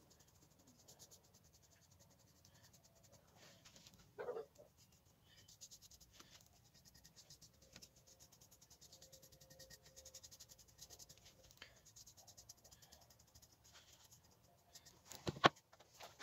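Faint scratching or rubbing, with a short burst of sound about four seconds in and a single sharp knock near the end.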